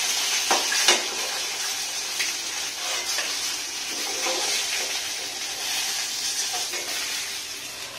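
Pieces of tilapia sizzling in hot oil in a kadai, the hiss slowly fading. The metal spatula clicks against the pan twice, about half a second and a second in.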